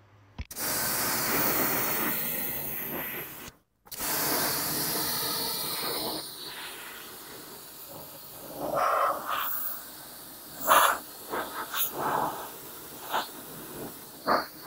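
Pressure washer spray from a short trigger gun, hissing as the jet of water hits a car wheel and tyre. The steady hiss breaks off for a moment a few seconds in, then gives way to uneven splashing with sharper spurts in the second half.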